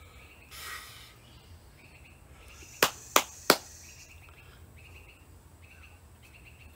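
Three sharp clicks in quick succession, about a third of a second apart, a little before the middle. They are the loudest sound. A brief rustle comes about half a second in, over a faint background of repeated insect-like chirping and a low hum.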